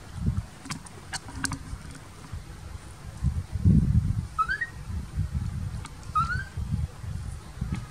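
Baby monkey moving about on a plastic tray of watermelon pieces, making low thumps and knocks that are loudest a little before the middle, with a few light clicks. Two short rising chirps sound about halfway through and again near the end.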